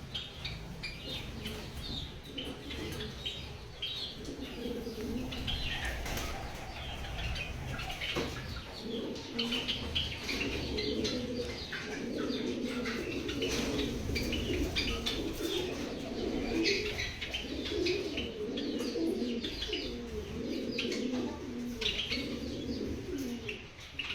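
A colony of Java sparrows chirping, many short notes overlapping, with wing flutters. A lower, choppy sound runs underneath and grows stronger from about four seconds in.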